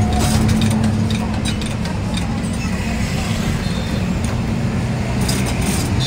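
A steady low mechanical drone with a constant hum running through it, even in level throughout.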